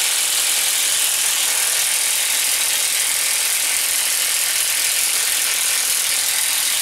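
Old corded Makita electric impact wrench hammering steadily on an engine bolt, a loud continuous rattle at an even pitch.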